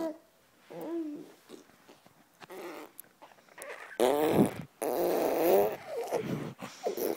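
Non-speech vocalizing: a short pitched call about a second in, then a louder, drawn-out warbling, grumbling vocalization starting about four seconds in.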